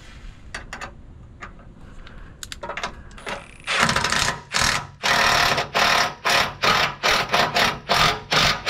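Ratchet wrench clicking in quick repeated strokes, about three a second, running a nylon lock nut down onto a boat trailer's leaf spring hanger bolt. A few light metal clicks come before it.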